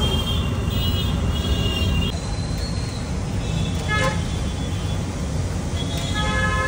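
Road traffic with several short car-horn toots over a steady low rumble: a few blasts at the start, one around the middle and another near the end.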